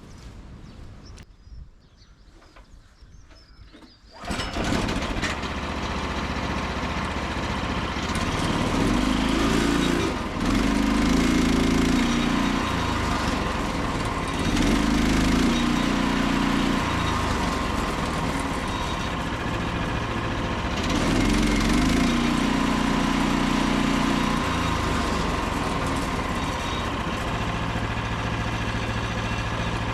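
The Frontier OS27 sawmill's small petrol engine starts up suddenly about four seconds in and keeps running, with three louder spells of a few seconds each.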